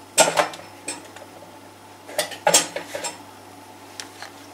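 Hands kneading bread dough on a wooden tabletop, with short sharp knocks and thumps against the table in two clusters, near the start and again about halfway through.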